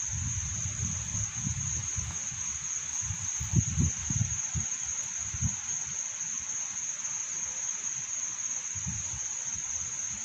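Insects, likely crickets, trilling in one steady high note. Under it are low bumps and rumbles of handling noise from the hand-held phone, heaviest about four seconds in.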